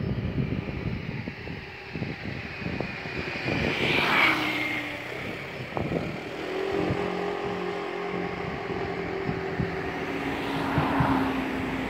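Engine noise of passing motor vehicles, swelling about four seconds in and again near the end, with low irregular buffeting on the microphone.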